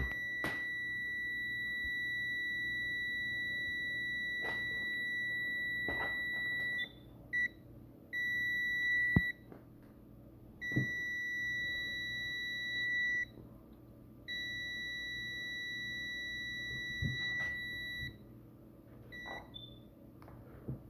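A no-contact voltage tester sounds its alert as one steady, high-pitched beep tone. The tone holds for about seven seconds, then cuts out and returns in several stretches of a few seconds each, ending with a short blip. Faint handling clicks come in between.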